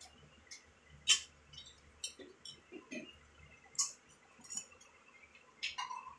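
Metal fork and spoon clinking against a plate and a glass bowl while eating: several sharp clinks, the loudest about a second in.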